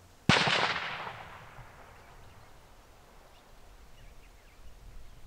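A single loud hunting-rifle shot, its crack followed by an echo that fades away over about two seconds.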